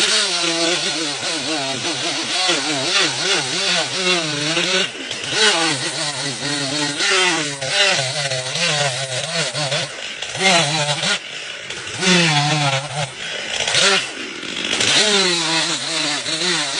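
A power saw cutting wood. Its motor pitch keeps dipping and recovering as it bogs under the cut, with brief breaks about 5, 10 and 14 seconds in.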